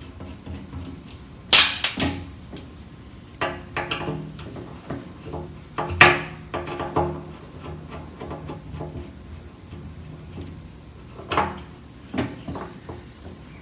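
Scattered sharp metal clinks and knocks as Phillips screws are worked out of the sending unit on a VW Beetle fuel tank and tools and parts are handled. The loudest comes about a second and a half in, another about six seconds in, with smaller taps between.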